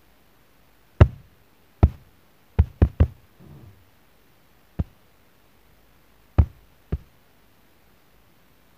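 A toddler's hands slapping and knocking on a balcony railing and wall. There are eight sharp knocks at irregular intervals, three of them in quick succession around the three-second mark.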